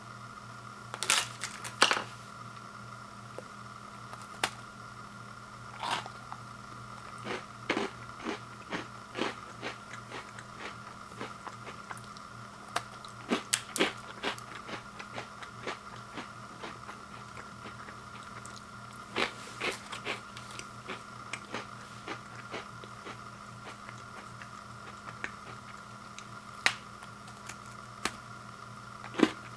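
Scattered crisp crackles and snaps from the biscuit packs and biscuits being handled, some in quick clusters, over a steady hum.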